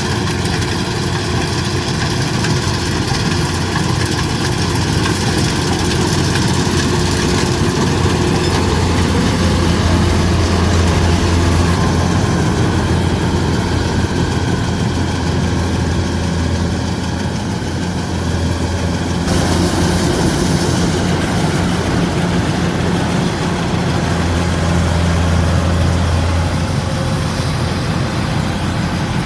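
Kubota DC-105X combine harvester running steadily: a continuous low diesel engine drone under a dense machinery whirr, which changes abruptly about two-thirds of the way through.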